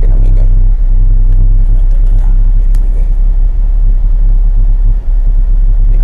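Car driving along a rough dirt road, heard from inside the cabin: a steady, loud low rumble of engine and tyres, with a brief dip about five seconds in.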